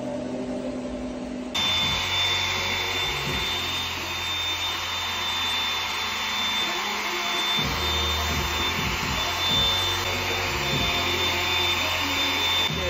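Hair dryer blowing steadily, with a thin high whine over the rush of air. It starts abruptly about one and a half seconds in.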